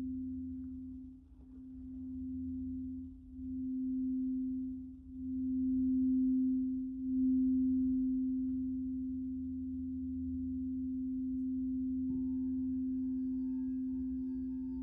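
Singing bowl sounding one steady low tone that swells and fades every second or two. About twelve seconds in, a second, higher ring joins it.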